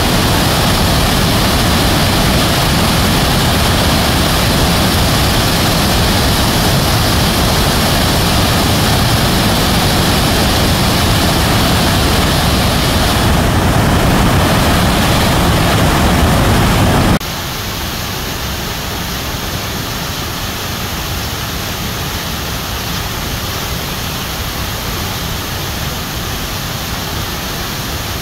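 Mountain torrent rushing over boulders: a loud, steady rush of white water that drops suddenly to a softer level about seventeen seconds in.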